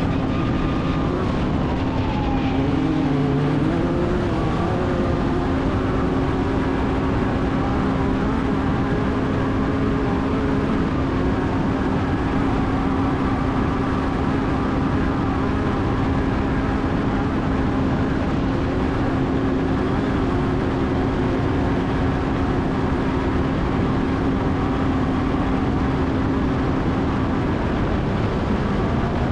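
Off-road race vehicle's engine running hard at a high, fairly steady speed over heavy wind and terrain noise. The pitch rises and falls in the first few seconds, holds level for most of the time and shifts again near the end.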